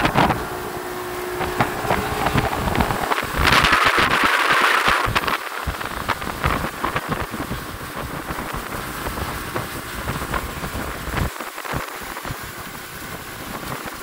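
Wind buffeting the microphone on a boat under way, with the rush of water. The noise is irregular, with a louder rush lasting about a second and a half, around three and a half seconds in.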